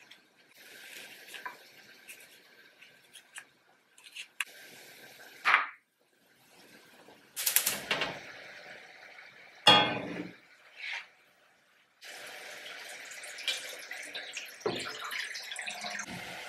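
Kitchen work sounds: light clicks of a knife cutting a tomato over a glass bowl, then a few loud clanks with ringing as non-stick pans are set on a gas hob, and a steady rush of water being poured into a frying pan near the end.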